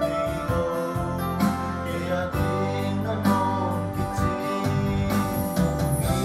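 A man singing a hymn to a Yamaha electronic keyboard accompaniment: held chords over a bass line, with a steady beat.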